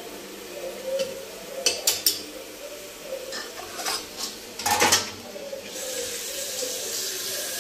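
Metal kitchenware clinking and knocking: a knife and an aluminium pressure-cooker pot as potatoes are cut into it, with the loudest clatter about five seconds in. Then a kitchen tap starts running near the end.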